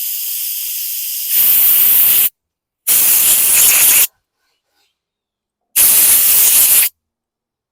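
Compressed-air blow gun blowing through a small-engine carburetor to clear the needle seat and passages. A softer hiss for about a second rises into a loud blast, followed by two more one-second blasts with short pauses between them.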